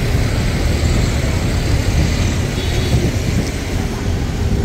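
Road traffic: a steady low rumble of cars passing along the road.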